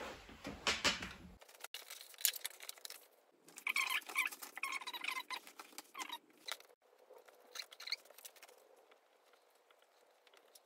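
A stiff waxed-canvas bag panel being handled and slid across the sewing table: scratchy rustling in stretches with a few sharp clicks, fading to faint handling noise for the last few seconds.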